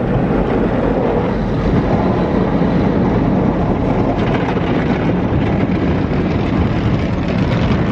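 Automatic car wash working over the car, heard from inside the closed cabin: a steady, loud rushing of water spray and equipment on the body and windows.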